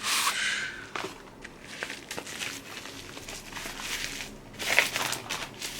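Product packaging being opened and handled: scattered rustles and short clicks, with a louder rustle right at the start and a cluster of clicks about three-quarters of the way through.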